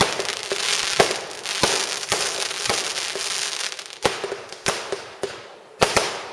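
Fireworks going off: a string of sharp bangs from bursting shells, several a second apart, ending with two in quick succession, over a hiss of sparks that dies down in the second half.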